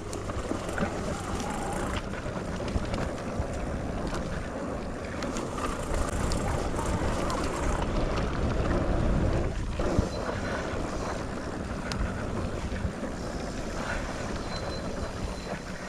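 Wind rumbling on the microphone while a mountain bike rides a dirt trail, with a steady rush of tyre noise and scattered small clicks and rattles.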